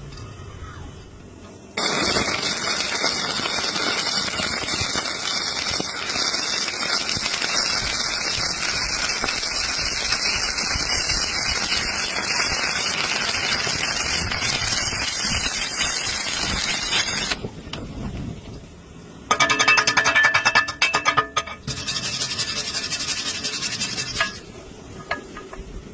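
Stick-welding arc with a coated electrode crackling steadily for about fifteen seconds. After a short pause there is a briefer, louder burst with a pitched ring in it, then a few more seconds of the same crackle, which cuts off near the end.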